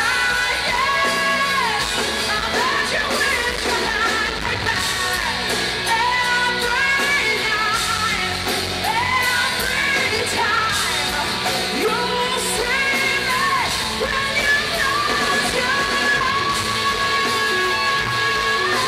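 Live hard rock band playing loud, with sung and yelled vocal lines over electric guitars and drums, heard in a large hall.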